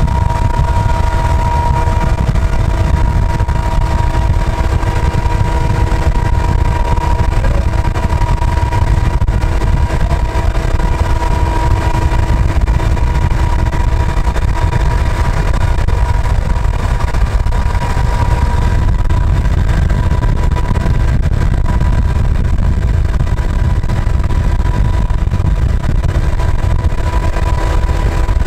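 Steady heavy rumble of a moving vehicle pacing a Canadian Pacific diesel freight locomotive. Road and wind noise blend with the locomotive's running, and a steady whine runs through it.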